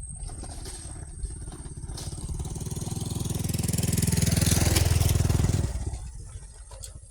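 A motorcycle engine passing by: it grows louder, is loudest about four to five seconds in, then fades away.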